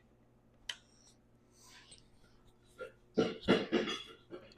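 A small sharp click of a tool or part, then about three seconds in a short, rough throaty vocal noise like throat clearing.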